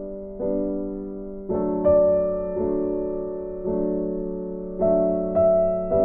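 Background music: slow, soft piano chords, a new chord struck about once a second and left to fade.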